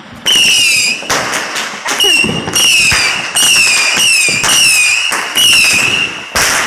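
Whistling firework going off: a quick series of shrill whistles, each under a second and wavering in pitch, with hissing between them and a brief hiss at the end.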